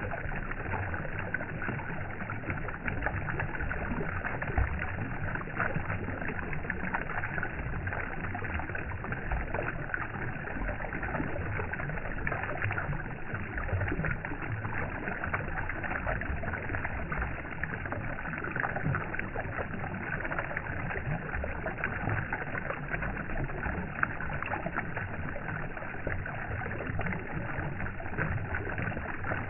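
A steady, even rushing noise with no breaks, rhythm or pitch, the kind of constant sleep-sound bed that water or similar noise makes.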